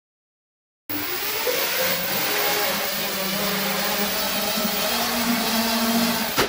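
Electric motors and propellers of a homemade foam RC drone airplane hovering: a steady whirring hum with a low tone that wavers a little in pitch. It starts suddenly about a second in.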